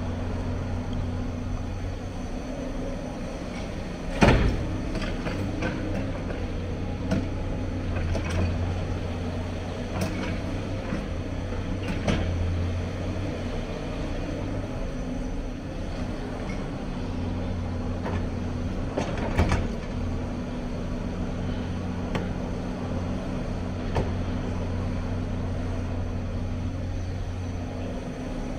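Hyundai crawler excavator's diesel engine running steadily under load while it digs rubble and swings a full bucket, with scattered metal clanks and knocks as it works; the loudest knock comes about four seconds in and another cluster around nineteen seconds.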